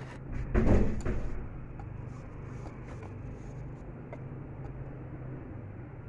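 Wire whisk beating batter in a ceramic bowl, with small scattered clicks of the wires against the bowl, over a steady low engine hum of road traffic. A louder noisy burst comes just under a second in.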